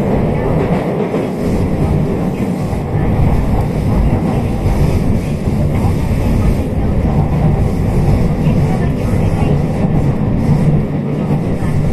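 Running noise inside a JR West Special Rapid Service train carriage: the train's wheels and motors on the rails make a low, steady noise with no breaks.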